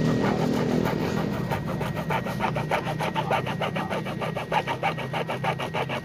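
Hacksaw cutting through a motorcycle's plastic rear fender in quick, even back-and-forth strokes, about four or five a second. The strokes start about a second in and grow stronger, over a low engine hum that fades.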